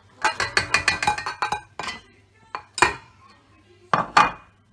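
A small dish clinking against a stainless-steel stand-mixer bowl while melted butter is poured, first in a quick run of clicks, then a few separate louder knocks about two, three and four seconds in.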